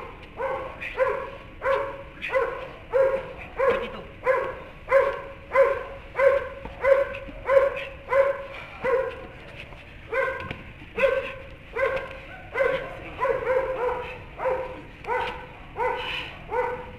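A dog barking over and over in an even rhythm, about one and a half barks a second, with a short pause about ten seconds in.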